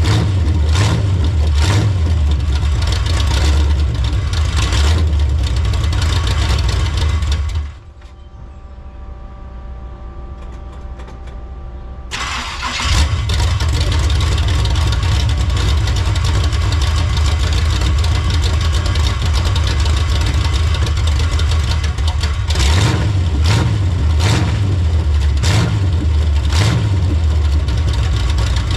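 Chevrolet Monte Carlo engine running loud with repeated throttle blips. It cuts out about eight seconds in, leaving a low steady hum for a few seconds, then fires up again and runs on, blipped a few more times near the end.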